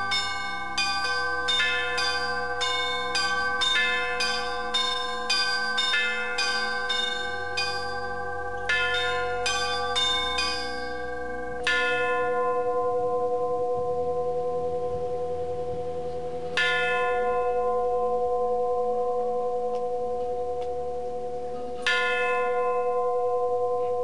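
Orthodox church bells ringing: quick chiming of several smaller bells, a few strokes a second, for about the first half, then a single bell struck three times, about five seconds apart, each stroke left to ring out.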